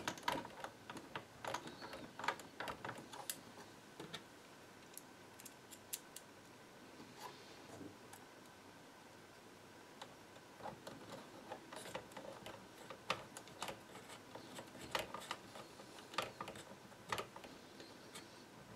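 Faint, scattered clicks and ticks of a small screwdriver driving screws through a plastic undertray into a DJI Phantom 2 drone's body, with a quieter lull in the middle.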